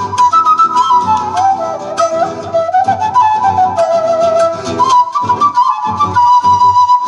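A flute plays a flowing melody over a rhythmically strummed guitar, settling into a long held note near the end.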